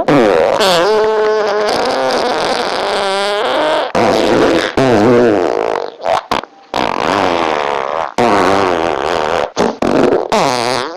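A quick run of farts, one after another with short breaks. Some are long and drawn out, wavering up and down in pitch, and others are short, sharp ones.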